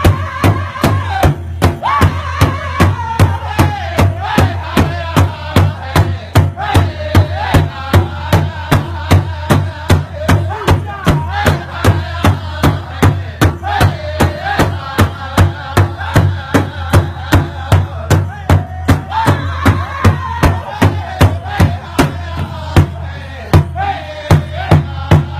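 A drum played in an even, steady beat, about two to three strokes a second, with voices singing a wavering melody over it.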